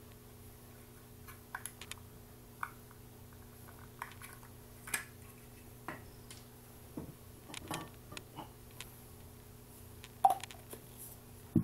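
Scattered small clicks and light plastic knocks as the accessories on a Fenix TK11R2 flashlight are handled: the AD502-N camping lampshade comes off and a white diffuser tip goes on. The sharpest clicks come about ten seconds in and again at the end.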